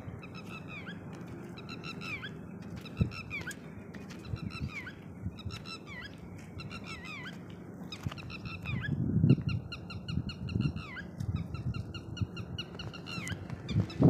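Lapwing alarm calls: a run of sharp, high-pitched, falling notes, repeated again and again and coming faster and denser from about nine seconds in. These are the calls of a parent bird scolding an intruder near its ground nest of eggs. A few low thumps come through under the calls.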